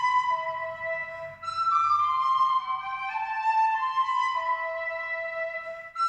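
Instrumental music: a melody of held notes in a high register, moving from note to note, with brief breaks about one and a half seconds in and just before the end.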